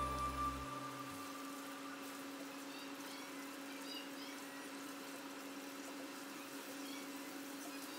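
Oil sizzling and bubbling steadily around crinkle-cut potato fries deep-frying in a pan, with faint scattered crackles and a steady low hum underneath. The tail of background music dies away about a second in.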